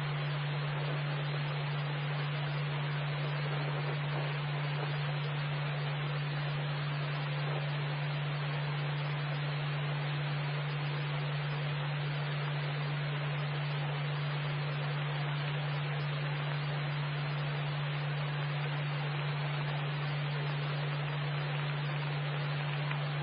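Police scanner receiving no transmission: steady radio hiss with a constant low hum beneath it.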